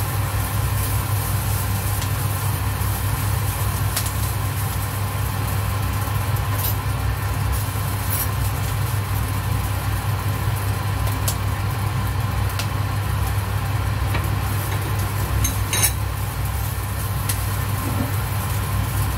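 Vegetable fried rice being stir-fried in a nonstick wok with a silicone spatula: scattered light taps and scrapes of the spatula against the pan, the loudest about sixteen seconds in, over a steady low hum that runs throughout.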